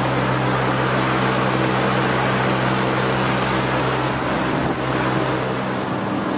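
A Daikin chiller running: a steady mechanical hum from the compressor under a broad rush of air. The deepest part of the hum fades about four to five seconds in.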